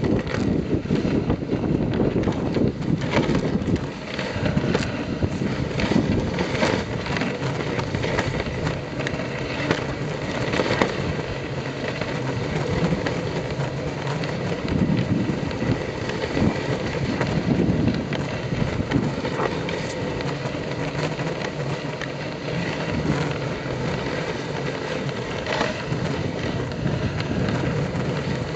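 A wooden dog sled sliding fast over a snowy trail: a steady scraping hiss of the runners on snow, broken by frequent crackling clicks and knocks as the sled jolts and rattles.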